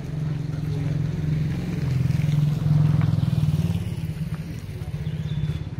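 A small engine running with a fast, even pulse, growing louder to a peak about three seconds in and then easing off.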